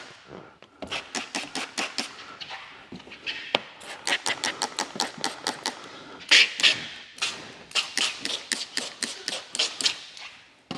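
Hand spray bottle squirting slip solution under paint protection film, pumped in quick runs of short hissing sprays, several a second, with a few short pauses.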